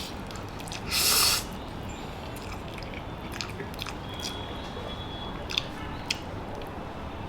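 A person eating instant ramen noodles close to the microphone: a loud slurp about a second in, then chewing with scattered small mouth clicks.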